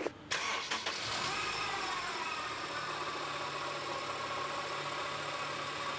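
Honda CR-V engine idling, with a steady whine from the air-conditioning compressor's loose pulley bearing. The bearing is worn and makes this noise whenever the engine runs. It starts about a third of a second in.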